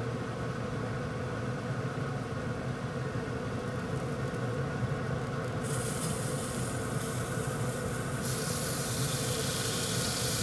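Pit Boss pellet grill running with its lid open: a steady hum from its fan, joined by a hiss that comes in about six seconds in and grows louder about eight seconds in.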